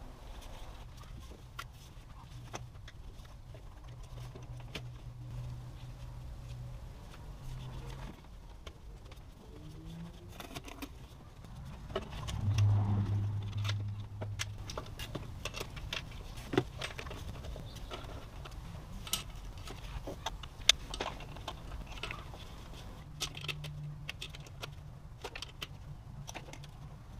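Scattered clicks, taps and knocks of hands working with plastic and rubber intake parts, metal hose clamps and tools, over a faint low hum that grows louder for about two seconds near the middle.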